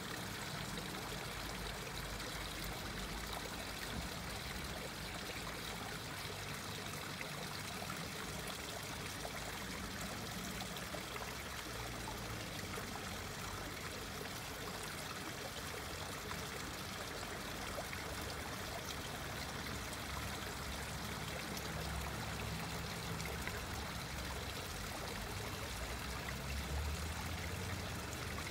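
A small waterfall trickling in thin streams from a mossy stone ledge into a still pond, splashing steadily onto the water surface.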